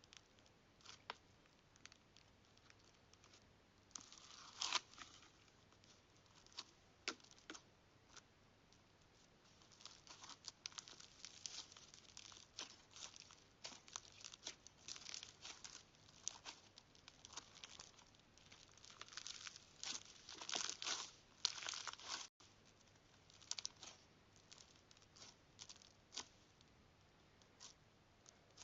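Slime being played with by hand: faint sticky crackles, clicks and pops, sparse at first and coming thick and fast about two-thirds of the way in.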